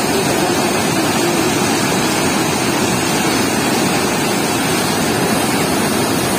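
Water pouring through a barrage sluice gate and churning into white water below, a loud, steady rushing with no break.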